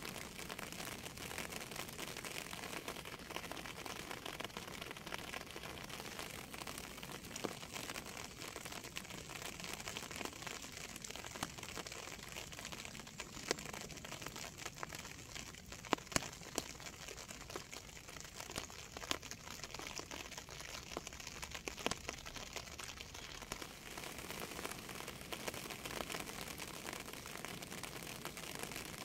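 Steady rain falling, an even hiss with many individual drops ticking sharply on a near surface, a few louder drops around the middle.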